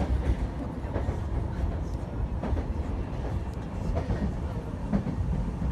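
Steady low rumble of a moving Yamanote Line commuter train heard from inside the carriage, with a few knocks of the wheels over rail joints.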